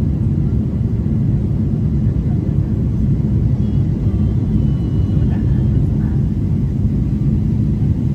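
Steady low rumble inside an airliner's cabin on approach to landing, engine and airflow noise heard from a window seat over the wing with the flaps extended.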